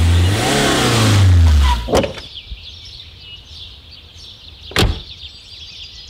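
SUV engine running as the vehicle pulls up, its pitch rising and then dropping away before the engine cuts off about two seconds in. A single car door thud follows near the five-second mark.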